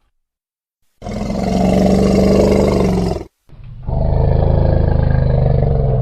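Elephant roaring: two long, low calls, the first starting about a second in and the second following after a very short break.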